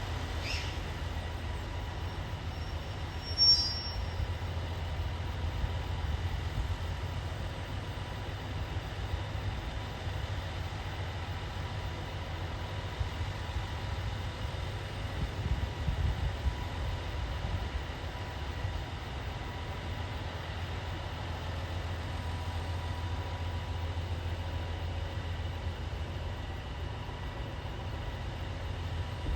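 KiHa 283 series diesel train running steadily at a low rumble, with no rise or fall, typical of the railcar's engines standing at the platform. A short sharp click about three and a half seconds in.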